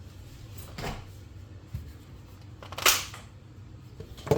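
A screw gun and drill bits being handled, probably while the bit is changed: a few scattered clicks and knocks, the sharpest about three seconds in and another at the very end. The drill's motor does not run.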